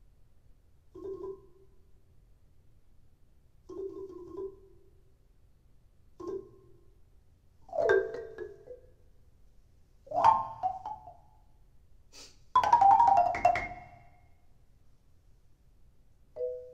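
Solo marimba played with yarn mallets: short, separate phrases of notes with pauses between them, climbing higher and getting louder, the loudest and busiest burst about thirteen seconds in, then one short note near the end.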